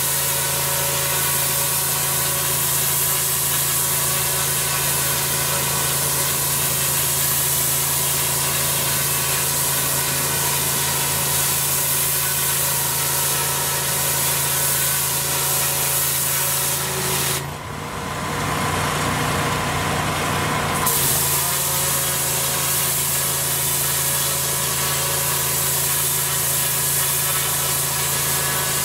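Twin-headed turbo lance of a pressure washer blasting block paving: a loud, steady hiss of high-pressure water over the constant drone of the pressure washer's engine. About two-thirds through, the hiss drops out for about three seconds while the engine keeps running, then starts again.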